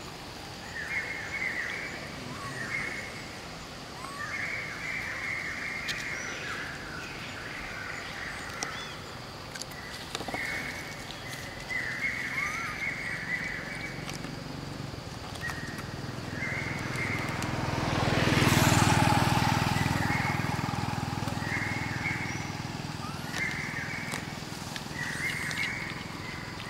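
Birds chirping in short repeated bursts, with a vehicle passing on the road about two-thirds of the way through, growing louder and then fading away.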